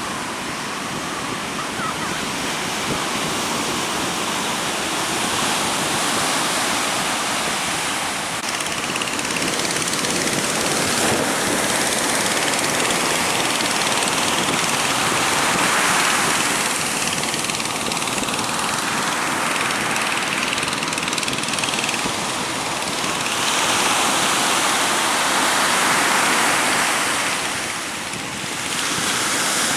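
Strong wind and breaking sea waves: a continuous rush of noise that swells and eases every few seconds, loudest around halfway and again near the end, dipping briefly just before the end.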